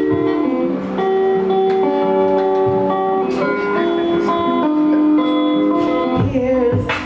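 Live music: the instrumental introduction to a song, with long held guitar chords changing every second or so. A low beat comes in near the end.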